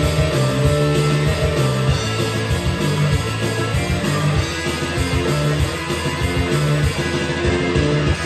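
Rock music with electric guitar and a pounding bass line, an instrumental stretch of a karaoke backing track playing through the room's speakers.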